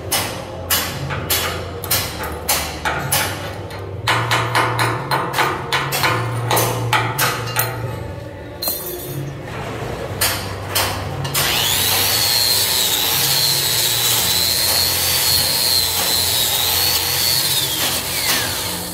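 A hammer chipping slag off a fresh flux-core weld on a steel column splice, sharp metallic strikes a couple of times a second for about eight seconds. About eleven seconds in, a DeWalt angle grinder starts and runs steadily with a high whine as it grinds the weld, then winds down near the end.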